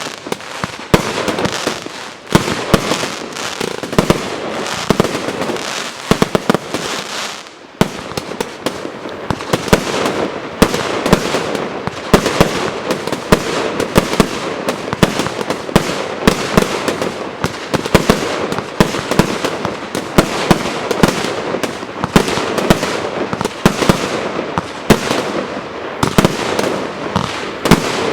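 Consumer firework battery (J-Fireworks JF5441 'Black out eight' battery assortment) firing continuously: many rapid sharp bangs over a steady crackling hiss, with a short lull about seven seconds in before the firing picks up again.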